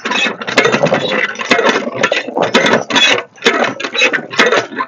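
Cast-iron hand pump being worked by its lever handle, the mechanism clanking and creaking stroke after stroke, with water splashing into a plastic bowl of potatoes being washed under the spout.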